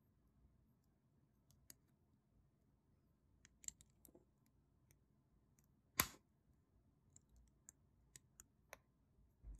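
Plastic Lego bricks clicking as they are handled and pressed together, scattered small clicks with one louder snap about six seconds in.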